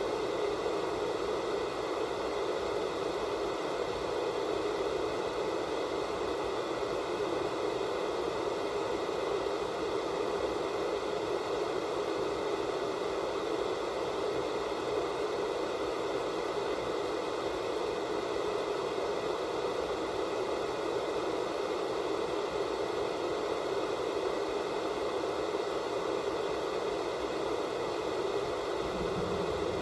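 Static hiss from an analog TV with no signal, a steady, unchanging rushing noise. A faint low hum comes in near the end.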